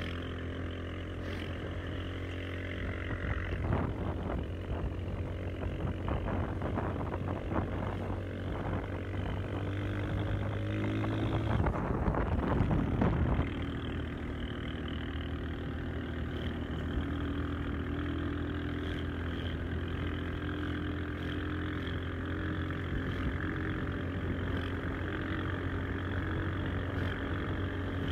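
Vehicle engine running steadily while driving along a rough gravel road, with rattles and knocks from the bumpy surface that come thickest and loudest around twelve seconds in, then ease off.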